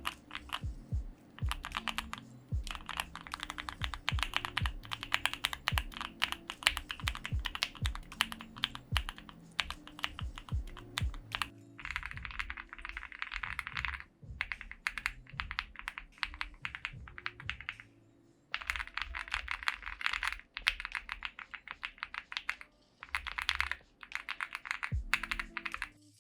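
Fast typing on a custom mechanical keyboard: rapid runs of key clicks broken by short pauses. Background music with a bass line plays underneath.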